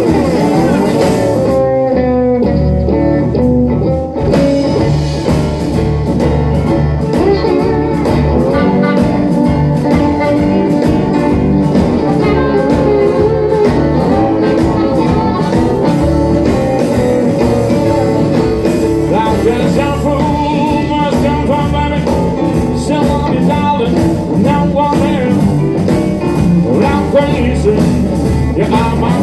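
Live blues band playing a steady groove on guitar, keyboard and drums. Over it, a harmonica cupped against a handheld microphone plays a bending, wavering line.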